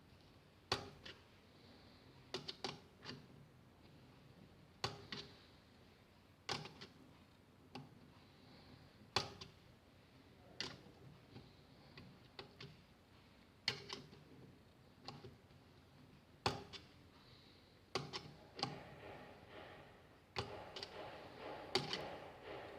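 Irregular sharp clicks and light knocks of hand work fitting nipple drinkers into a pipe, about one every second or two, some in quick pairs, with a short stretch of rubbing near the end.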